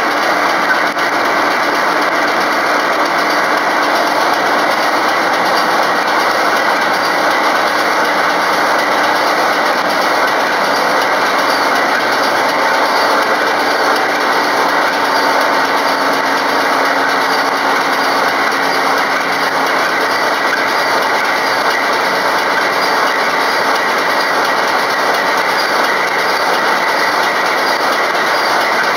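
A loud, steady hiss that runs on unbroken, with a faint hum under it.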